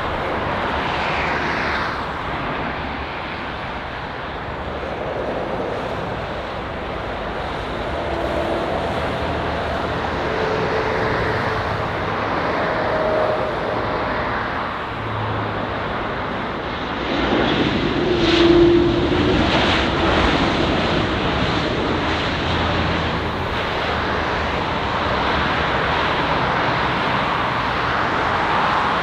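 Jet airliner's engines on a landing at a large airport: a steady rushing roar with faint whining tones that shift in pitch. It grows louder for a few seconds about two-thirds of the way through.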